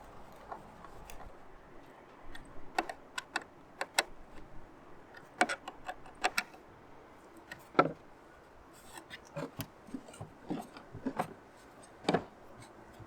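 Irregular light knocks and clicks of wooden parts and hand tools being handled during bird house assembly, some in quick clusters, the sharpest about eight seconds in and again just after twelve seconds.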